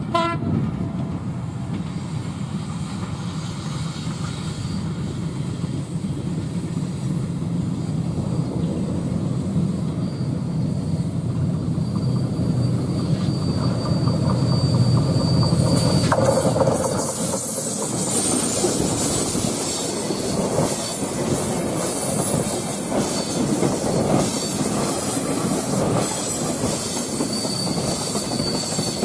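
Diesel-electric locomotive of a passenger train drumming, growing louder as it approaches and passes about halfway through. The coaches then roll by close with clattering wheels, and a thin wheel squeal from the curve comes and goes.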